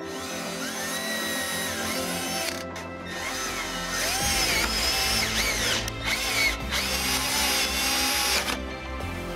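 Milwaukee cordless drill-driver with a socket running nuts down on the steering-arm bolts in three spells, its motor whine rising and falling in pitch, with short pauses between runs. Background music plays underneath.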